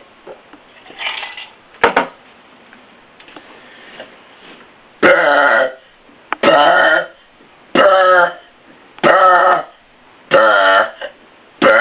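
A man burping as loud as he can: after a sharp click about two seconds in, a rapid run of long, loud, pitched burps begins about five seconds in, one every second and a bit, five in a row with a sixth starting at the end.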